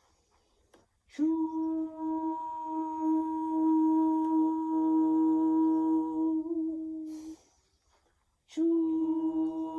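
A person chanting the Qi Gong kidney healing sound 'chuuu' as one long hum on a single steady pitch for about six seconds. After a short quiet pause for breath, a second one starts near the end.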